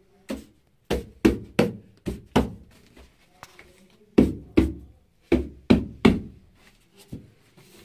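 About a dozen sharp knocks in two quick runs, roughly three a second, as a boxed studio monitor in its wrap and foam packing is knocked and worked loose from a tight box.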